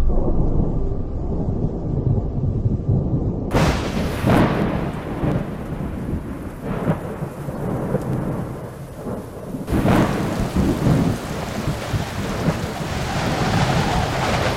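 Thunderstorm: low rumbling thunder, then heavy rain starts hissing suddenly about three and a half seconds in, with louder thunder cracks near the start of the rain and again about ten seconds in.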